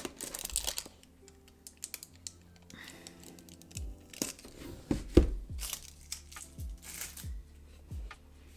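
Cardboard gift box and paper packaging being handled: a sticker peeled off, paper crinkling and tearing in short rustles. Lo-fi background music plays under it, with a steady kick-drum beat coming in about halfway through.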